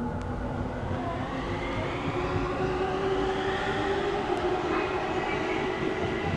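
Electric train running alongside the platform: steady rumble of wheels on rail with a motor whine that rises a little in pitch.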